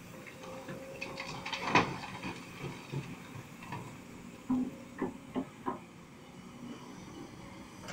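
Rock from a Kobelco 210 excavator's bucket knocking into a dump truck's bed, with one loud knock about two seconds in and a quick run of sharper knocks about five seconds in, over the faint steady hum of the excavator's engine.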